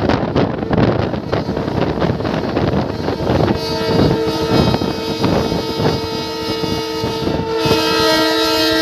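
Indian Railways electric locomotive-hauled express running at speed, with steady rumble and rattle of wheels on rail. About three and a half seconds in, a locomotive's horn sounds and is held as one long blast, growing richer near the end.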